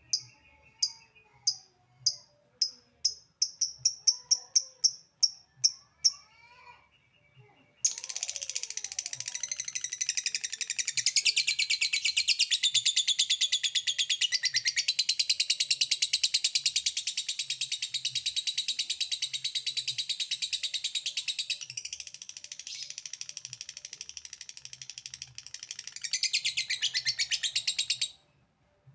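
A lovebird gives a run of short, sharp ticking chirps ('ngetik') that come faster and faster for about six seconds. After a short pause it breaks into 'ngekek', a long unbroken rapid high-pitched chatter that lasts about twenty seconds and cuts off suddenly. This is the kind of call keepers play to make other lovebirds answer.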